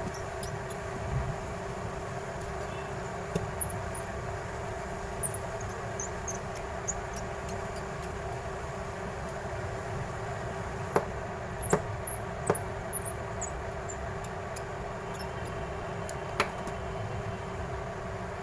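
A steady background hum with a few sharp clicks, about four, mostly in the middle and one near the end: small parts and tools clicking against the plastic of a phone being taken apart.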